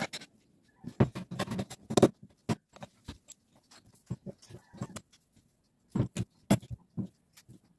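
Irregular metallic clicks and knocks of a starter motor's parts being handled and worked apart with a hand tool, with short quiet gaps between.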